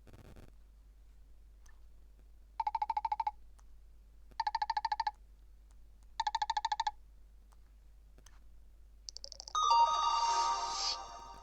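Nokia 7710 mobile phone ringtone: three short trilling rings, each under a second, like a classic telephone bell. About nine seconds in, the next ringtone, a melody, begins.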